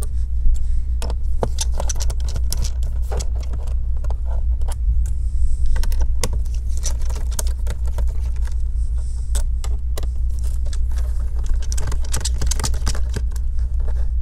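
Phillips screwdriver removing small screws from a laptop's plastic bottom cover: irregular light clicks, ticks and scrapes of the bit working in the screw heads, over a steady low hum.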